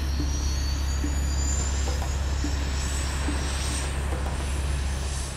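TAI KAAN twin-engine jet fighter taxiing: steady low engine rumble with a high turbine whine that slowly rises in pitch.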